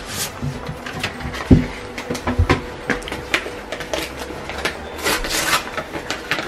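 A sheet of paper rustling and crinkling as it is handled and unfolded, with scattered handling clicks and two dull thumps near the middle.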